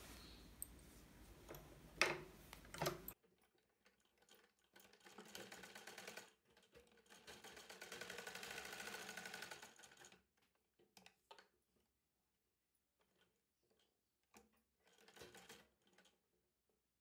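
Sewing machine stitching in short runs with pauses between them, the longest lasting about three seconds near the middle. It is running a line of stitching around the edge of a lined blouse piece. Two clicks come before the first run.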